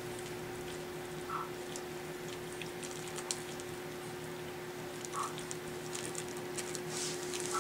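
Pekingese puppies moving about: their claws tick and scratch on the floor in scattered short clicks, with three brief faint squeaks, over a steady low hum.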